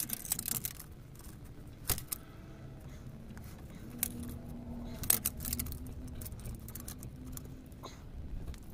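Metal wrench clinking and clicking against a spin-on oil filter as it is fitted on and worked: a handful of sharp, irregularly spaced clicks with light metallic jangling in between.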